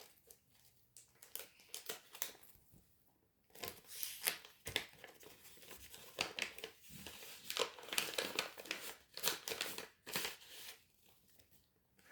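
Wrapper of a pack of trading cards being torn open and crinkled by hand, in irregular crackling bursts with a short pause about three seconds in.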